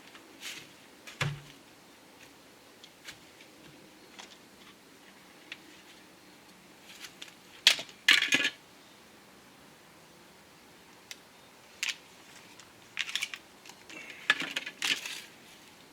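Scattered light clicks, taps and rattles of small hard objects being handled, with a dull thump about a second in and louder clatters around the middle and near the end.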